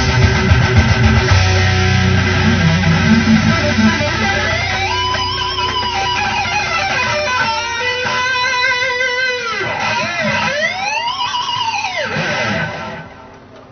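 Guitar-led music ending the song: held notes, then a few notes that bend up and back down, before the sound drops away near the end.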